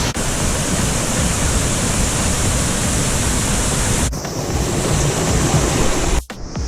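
Waterfall and river water rushing as a loud, steady wash of noise, broken by abrupt cuts about four seconds in and near the end.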